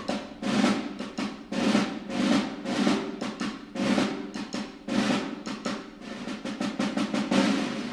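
Background music: a drum-led passage of snare and bass drum hits in a steady beat over a low instrumental bed.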